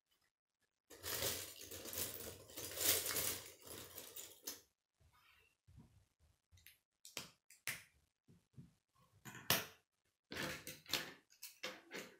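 Plastic K'nex rods and connectors clicking and clattering as they are handled and snapped together. A long stretch of clattering starts about a second in, then separate sharp clicks follow, and another burst of clattering comes near the end as loose pieces are rummaged.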